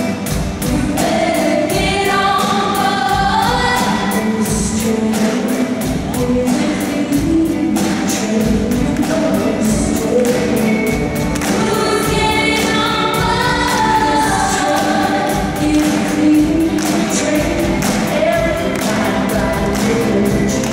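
A large band and a group of singers performing a gospel-style song, many voices singing together over a steady beat.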